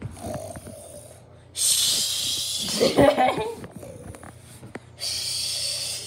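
A person imitating snoring with the mouth: a long breathy snore with a rough snort in the middle, then a shorter breathy hiss near the end.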